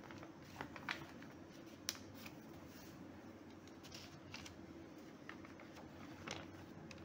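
Faint rustling and scattered light ticks of a comic book's paper pages being handled and turned by hand, over a low steady background hum.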